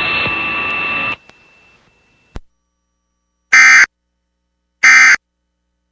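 Emergency Alert System end-of-message code: two short, loud bursts of digital data tones, about 1.3 seconds apart, that sound like buzzes and signal the end of the alert. Before them, a steady hiss with a faint whine cuts off about a second in, followed by a click.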